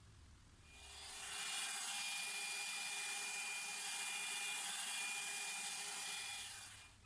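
Small electric air blower switched on about a second in, running with a steady whir and a thin high whine, then shut off near the end; it is blowing wet acrylic paint outward across a canvas to form a bloom.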